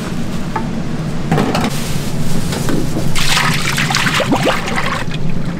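Cooking oil pouring in a thick stream from a large square tin into an empty deep fryer, becoming louder about three seconds in, over a steady low hum. A few knocks come before the pour.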